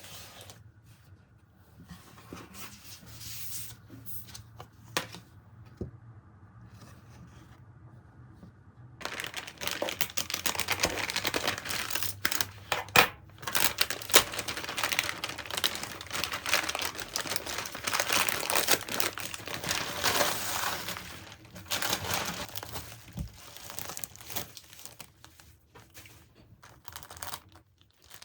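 Crinkling and rustling of something being handled. It is faint, with scattered clicks, for the first nine seconds, then dense and loud from about nine seconds in, and it eases off after about twenty seconds.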